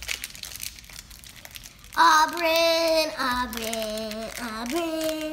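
Foil Pokémon card booster-pack wrapper crinkling for about two seconds, then a child's high, wordless singing voice with long held notes.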